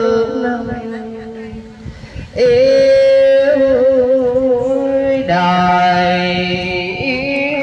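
A single voice chanting a Hoa Hao Buddhist verse in the sung recitation style, holding long drawn-out notes with a wavering pitch. There is a short break about two seconds in before the next held phrase.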